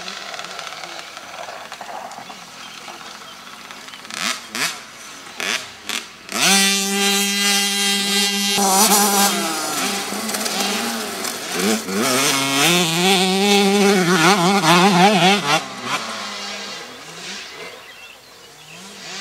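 Junior motocross bikes racing past on a dirt track, their small engines revving up and down through the gears. A bike holds one steady high note as it passes close, then several engine notes rise and fall together and fade away near the end.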